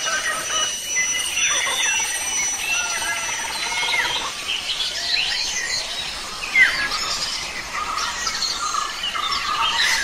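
A chorus of several birds chirping and whistling at once: many overlapping short calls and quick rising and falling notes. One brief louder sound comes a little past the middle.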